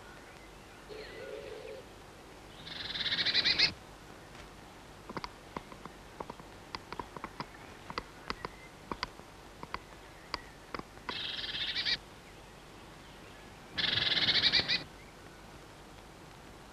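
Chickadee giving three harsh, buzzy calls of about a second each. Between the first two calls there is a run of light, quick taps.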